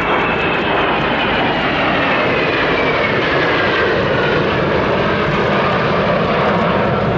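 Four General Dynamics F-16AM Fighting Falcons flying past in formation, their Pratt & Whitney F100 turbofan engines a loud, steady rush of jet noise with whining tones that fall in pitch as the jets go by.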